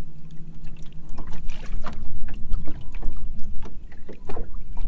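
Choppy water slapping against the hull of a small fishing boat in strong wind: irregular splashes over a low wind rumble, with a steady motor hum underneath that steps up slightly in pitch about a second in.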